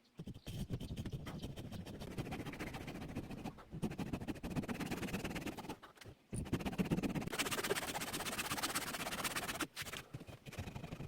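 Hand saw cutting through wood, a fast rasping of teeth on the grain, broken by three short pauses.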